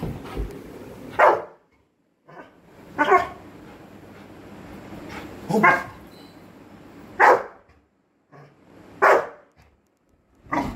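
Yellow Labrador barking in play, five short loud barks about two seconds apart.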